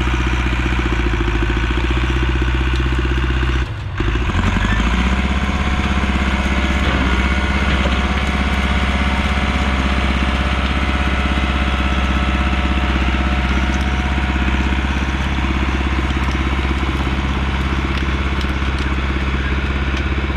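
Engine of a heavy land-clearing machine running steadily. About four seconds in the sound breaks off briefly, then carries on at a slightly different pitch.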